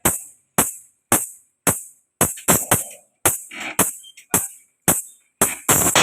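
Dance remix music played over a mobile sound system during a soundcheck: sharp drum-machine hits with a bright, jangly top, about two a second, with short silent gaps between them, thickening near the end.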